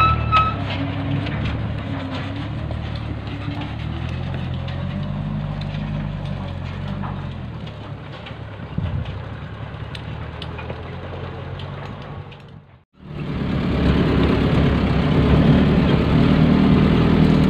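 Stone-hauling truck engines running on a dirt quarry road, with a short high squeal right at the start. After a sudden break about thirteen seconds in, a truck's engine is heard louder from inside its cab.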